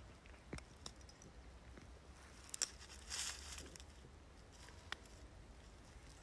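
Faint scattered crackles and rustling of dry grass and brush, with a sharper crackle about two and a half seconds in and a short rustle just after.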